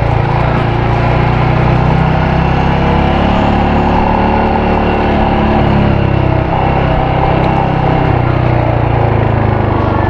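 Royal Enfield Hunter 350's single-cylinder engine running steadily as the motorcycle is ridden, with a brief dip in level about six and a half seconds in.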